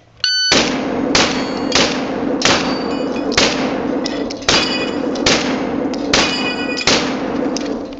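Electronic shot-timer beep, then a string of about nine shotgun shots, roughly one every three-quarters of a second, fired at steel plate targets. Some hits are followed by the metallic ring of the struck steel.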